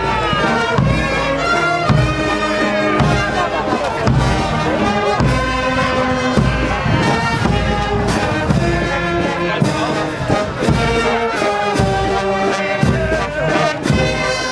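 Brass band playing, trumpets and trombones over a steady drumbeat.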